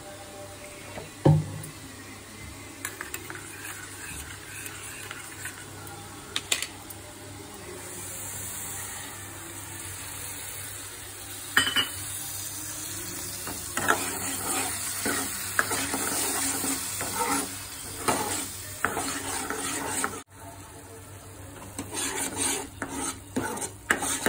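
Spiced masala paste sizzling in hot oil in a kadhai while a metal spoon stirs it, scraping and knocking against the pan. A single sharp knock comes about a second in, and the scraping and knocking get busier in the second half.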